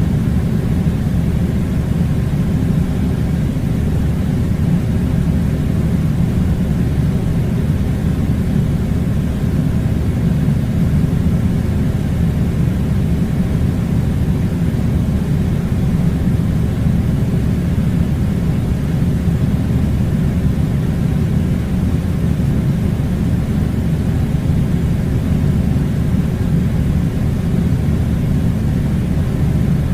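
Air conditioning unit blowing: a steady, loud, low rumble with a faint hum that never changes.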